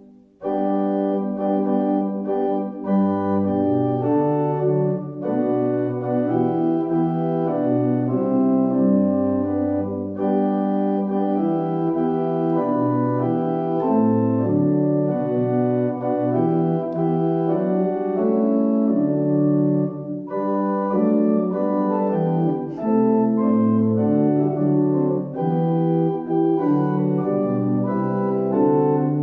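Church organ playing a hymn tune in full sustained chords over a moving pedal bass line, with no voices singing. A brief break right at the start marks the beginning of a new verse.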